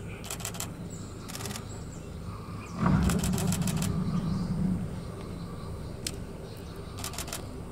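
Camera shutter firing in rapid bursts of clicks, five times over, with faint high bird chirps behind. A louder low hum swells about three seconds in and fades about two seconds later.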